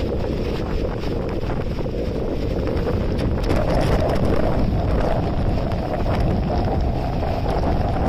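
Hurricane-force wind and driving rain in a steady rushing roar, the gusts buffeting the microphone, growing a little stronger about halfway through.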